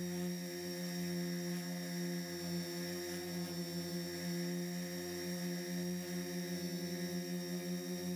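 Electric motors and propellers of a Turnigy SK450 quadcopter, heard from its onboard camera, humming steadily in hover. Near the end the hum wavers and beats as the motor speeds shift.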